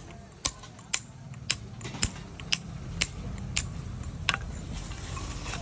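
Hand hammer striking a steel chisel against the edge of a stone slab, chipping it to shape a grinding stone: sharp metallic strikes about two a second, stopping a little over four seconds in.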